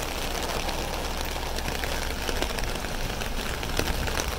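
A fire engine running steadily, a constant low rumble under an even hiss.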